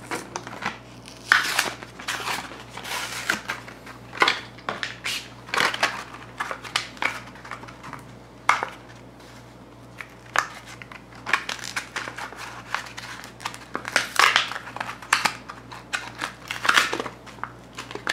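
Hot Wheels blister pack being torn open by hand: the cardboard backing card ripping and the plastic blister crinkling and crackling in irregular bursts.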